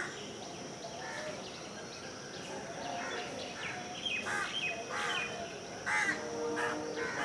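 Crows cawing several times, with quick higher-pitched chirps in between. A steady low tone comes in near the end.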